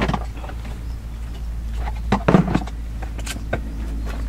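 Tent fabric and fittings being handled: scattered rustles and clicks, with a louder burst of rustling about two seconds in, over a steady low hum.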